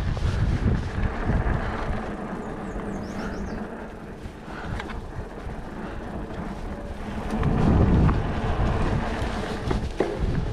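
Wind buffeting the microphone over tyres rolling on a dirt singletrack under a Trek Stache 29+ hardtail mountain bike, with small knocks and rattles from the bike over bumps. The rumble swells loudest right at the start and again about eight seconds in.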